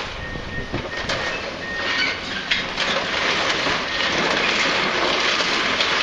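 Tracked demolition excavator pulling down a brick building: rubble and masonry crash and scrape over a steady machine rumble. A short, high beep repeats several times in the first two seconds.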